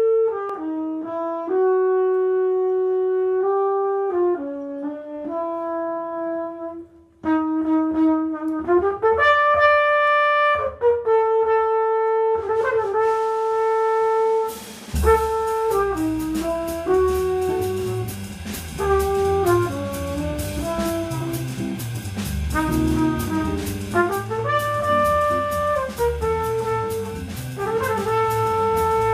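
Jazz trumpet playing a melody alone with long held notes, a brief pause about seven seconds in; about halfway through a rhythm section of double bass, drums with cymbals and archtop electric guitar comes in behind it.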